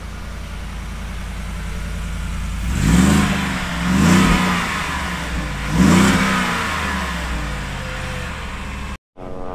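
Shelby Super Snake Sport F-150's V8 idling through its side-exit dual exhaust, then revved three times, about three, four and six seconds in, each rev rising and falling back to idle.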